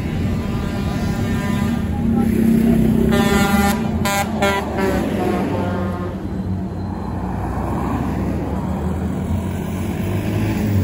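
Road traffic with a vehicle engine running steadily, and a vehicle horn sounding for a second or two near the middle.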